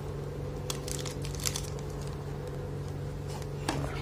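Clear plastic packaging bag crinkling as it is handled, with a cluster of crinkles about a second in and a few more near the end, over a steady low hum.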